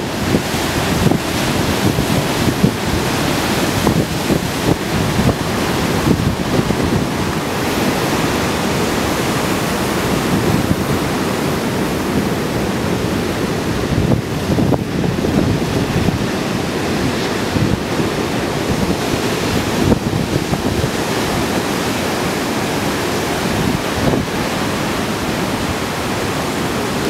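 Ocean surf running continuously as large waves of 8 to 12 feet break and wash through, with wind buffeting the microphone.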